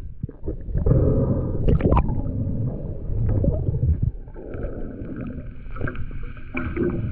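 Water gurgling and rumbling against an action camera's housing underwater, with scattered clicks. From about halfway a steady whine joins in.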